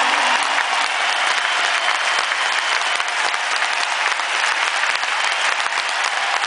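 A large arena audience applauding steadily after a high-bar dismount.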